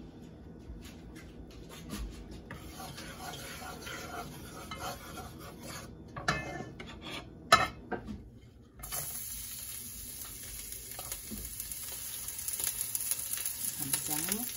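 A wooden spatula knocks sharply against a wok, then chopped garlic drops into the hot oil and sizzles with a steady hiss that grows slightly louder toward the end. Before that there are only faint clicks.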